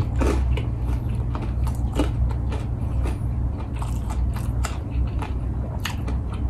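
Close-up mouth sounds of someone chewing a piece of fried chicken in red sauce, with many short wet clicks and smacks over a steady low hum.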